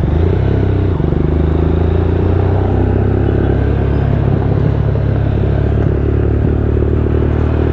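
Single-cylinder motorcycle engine running at steady low revs while the bike creeps along in slow traffic.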